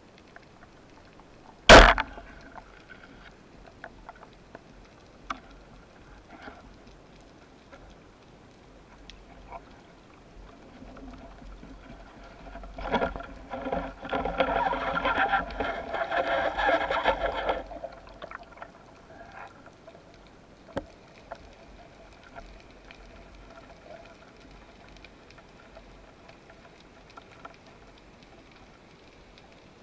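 A band-powered speargun firing underwater, one sharp loud crack about two seconds in. Later, from about 13 to 17 seconds, a few seconds of rushing, hissing water noise, with faint clicks in between.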